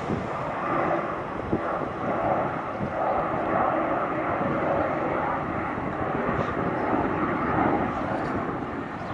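Boeing 737 jet airliner climbing out just after takeoff: steady jet engine noise that swells and fades a little.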